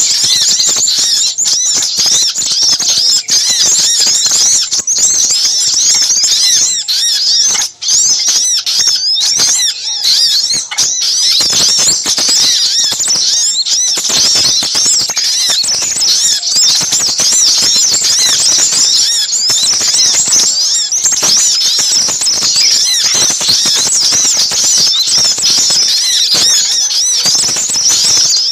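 Bird-lure recording of sogok ontong sunbirds mixed with sepah raja calls: a dense, busy chatter of many rapid, high-pitched chirps and twitters, overlapping without a break.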